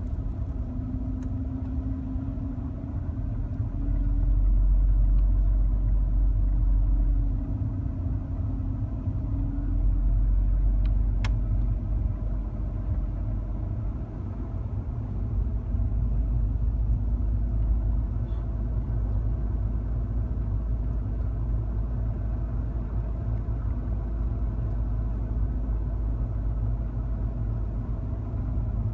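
Low, steady rumble of a Mercedes-Benz car driving on a snow-covered street, heard from inside the cabin. It grows louder for a few seconds twice, about four and ten seconds in.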